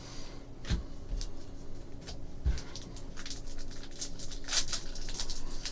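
Hands handling trading cards and a card pack wrapper: light crinkling and clicking, denser in the second half, with two soft thumps early on.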